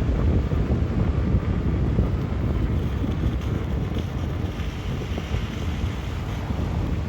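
Vehicle driving, with wind buffeting the microphone over a steady low rumble.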